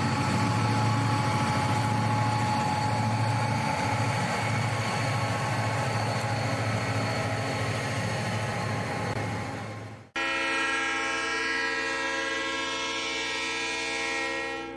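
A pair of Conrail diesel helper locomotives rumble past on the rear of an intermodal train. After an abrupt cut about ten seconds in, a locomotive horn sounds one long, steady chord as another Conrail freight approaches.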